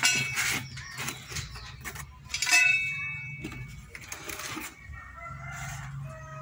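A rooster crowing, with a long call near the end, over a few bursts of rustling and knocking as the exhaust pipe and its cardboard box are handled.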